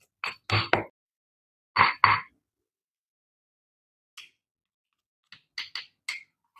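Stone pestle pounding a wet spice paste in a granite mortar: three quick knocks, then two more about a second later. After a pause, a few light clicks and scrapes of a wooden spoon against the stone near the end.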